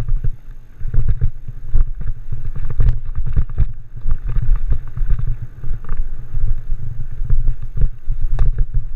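Wind buffeting the camera microphone while a Norco Torrent mountain bike rolls fast down a dirt singletrack. Through the rumble come repeated knocks and rattles from the bike over the rough trail.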